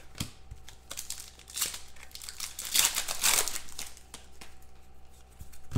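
Crinkling and rustling of football trading cards and their foil pack wrappers being handled and shuffled, with a few light clicks of card edges.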